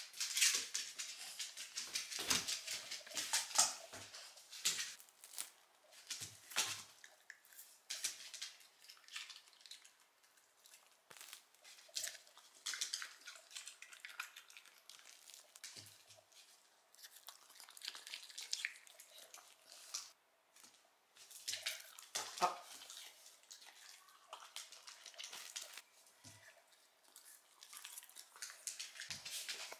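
Small Shiba Inu eating soft, ripe persimmon pieces: irregular wet chewing and smacking with many sharp clicks, along with its claws tapping on a wooden floor. The clicks are densest in the first few seconds and again a little past the middle.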